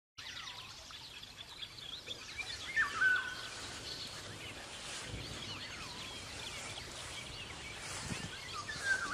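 Many birds calling over a steady background hiss, in short whistled notes that slide up and down in pitch, with two louder calls about three seconds in and near the end.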